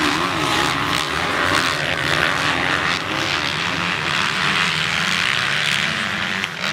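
Several motocross bike engines running hard together in a steady, dense buzz, with one engine's pitch rising and falling near the start as it revs.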